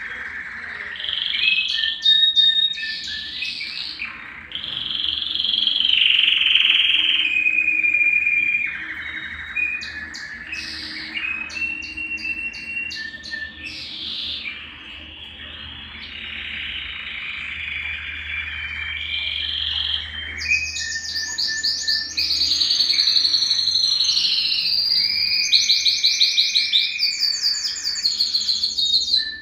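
Male domestic canary (Belgian canary) singing a long, unbroken song of whistled notes and warbles, with very fast rolling trills in the last third, which are the loudest part.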